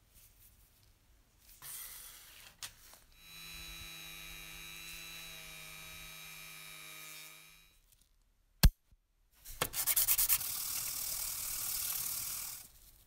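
A small rotary tool with a polishing wheel runs steadily for about four seconds. A single sharp click follows. Then a small metal part is rubbed back and forth on abrasive paper, starting with a few separate strokes and going on as an even rubbing.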